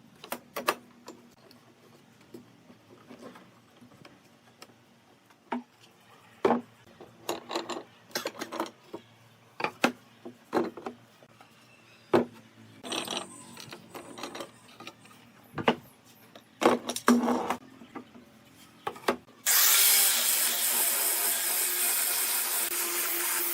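Wooden workpieces being handled and fitted by hand: scattered knocks, taps and clicks of wood on wood. Near the end a loud steady hiss of workshop machinery starts suddenly and keeps going.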